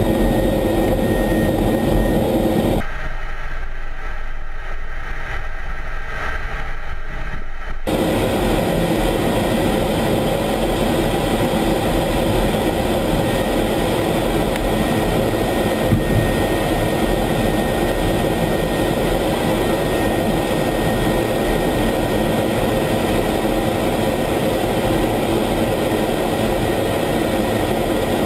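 F-16 fighter jet's engine heard from inside the cockpit, a loud, steady mix of engine and airflow noise with a faint steady whine as the jet rolls along the runway. About three seconds in the sound turns muffled and quieter for about five seconds, then returns to full strength.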